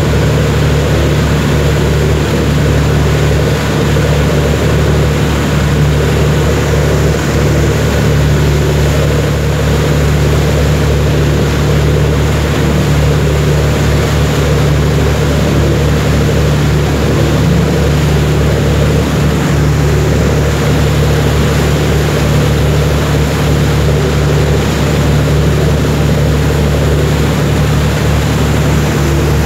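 A cruise boat's engine runs at a steady, unchanging low hum, under a constant rush of wind and water noise.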